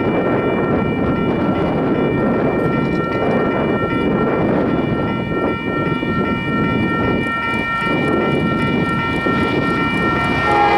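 Railroad grade-crossing warning bell ringing steadily as the crossing activates, over a loud rumble of wind on the microphone. A locomotive horn begins right at the very end.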